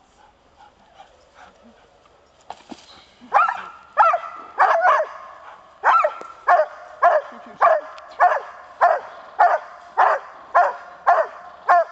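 Young Groenendael (Belgian Shepherd) dog barking in a steady, regular rhythm of about two barks a second, starting about three seconds in. This is the dog barking at the approaching helper in bitework training.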